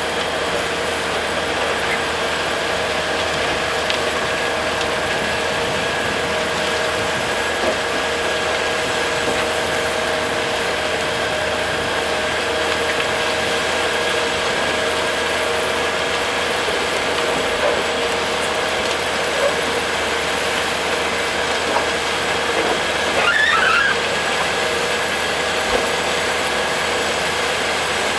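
A bucket wheel excavator and a TD40 crawler bulldozer working together, making a steady mechanical din with several steady whining tones through it. A brief, louder squeal comes a few seconds before the end.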